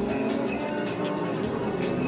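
Background music with sustained notes, laid over the footage.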